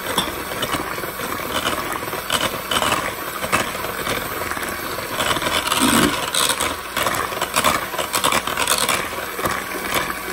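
Electric hand mixer running at low speed, its beaters working flour into a butter and egg batter, with steady motor noise and many short clicks and rattles.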